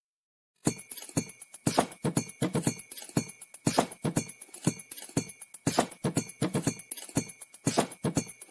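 Background music with a light clip-clop percussion beat, a sharp click on roughly every half or quarter second, starting about half a second in.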